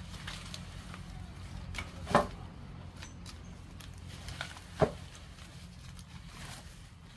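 Two loud, sharp knocks about two and a half seconds apart, with a few lighter taps between, from a tool striking wood or bamboo during chicken-coop construction, over a steady low rumble.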